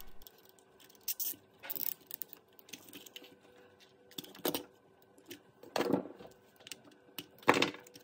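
Small handling clicks and rubbing of plastic RC-truck chassis parts as hands fit and fasten a pair of electrolytic capacitors onto the gearbox, with a few louder knocks, the loudest near the end.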